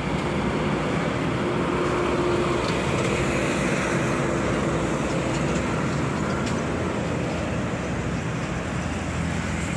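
Road traffic passing close by: cars, a box truck and pickups going past, a steady mix of engine and tyre noise, with one engine's tone standing out in the first few seconds.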